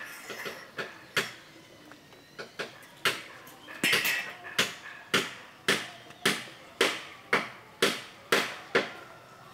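Tool blows on wood: a few light, irregular taps, then from about three seconds in a steady run of about ten sharp strikes, nearly two a second.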